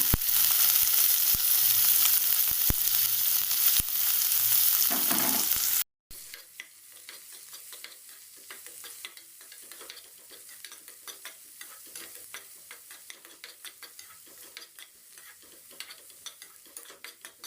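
Chopped onion frying in hot oil in a kadai with tempered mustard seeds and dals, stirred with a spoon. Loud sizzling at first; after a sudden cut about six seconds in, a much quieter crackle with many small clicks of the spoon.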